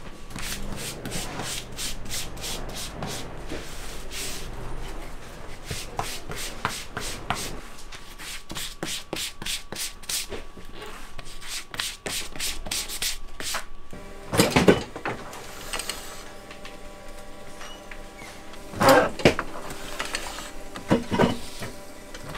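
A glue brush spreading glue across a leather sheet in quick, even back-and-forth strokes, about three scraping strokes a second; after about 14 seconds the strokes give way to a few louder, irregular scraping rustles.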